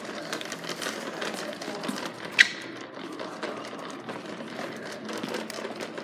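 Shark upright vacuum cleaner being rolled along the floor, its wheels and loose parts rattling and clicking unevenly, with one short, sharp squeak about two and a half seconds in.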